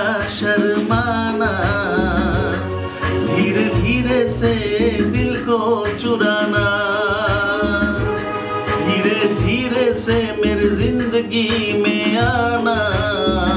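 A man singing over a backing track with a steady beat, holding long notes with a wavering vibrato.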